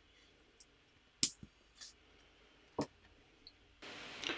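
LEGO plates clicking as they are pressed together and handled: half a dozen separate sharp clicks, the two loudest about a second in and near three seconds in. A faint steady hiss comes in near the end.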